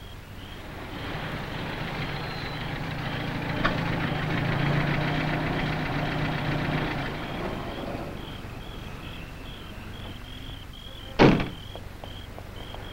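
A small sports roadster's engine running as the car pulls up, swelling and then fading away as it stops, followed about eleven seconds in by a single loud bang of the car door being slammed shut.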